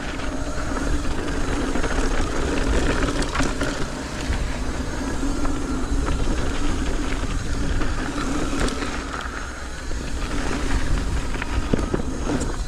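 Mountain bike rolling fast down a dry dirt trail: steady tyre and rolling noise with a constant hum, and scattered clicks and rattles from the bike over the ground.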